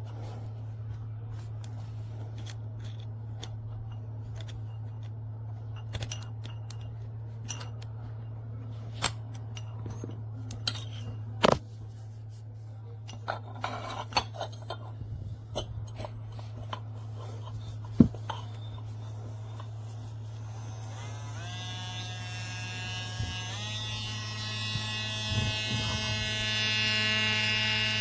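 HARDELL 4V cordless mini rotary tool running with a steady low hum, with scattered clicks and knocks from handling. Toward the end its motor whine jumps up in pitch in two steps, as the tool is switched up through its speed settings.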